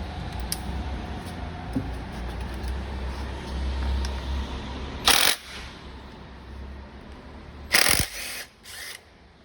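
Short bursts of a handheld power tool, a drill or impact driver running on a bolt: one burst about five seconds in, a longer one near eight seconds and a brief third just after, over a low rumble at the start.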